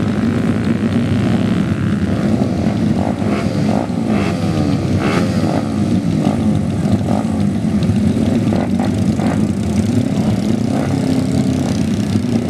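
Tuned racing motorcycle engines revving hard and continuously, their pitch rising and falling, with sharp crackles now and then.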